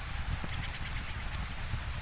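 Steady rainfall mixed with a wood fire crackling: an even hiss of rain and a low rumble, with scattered sharp crackles and pops.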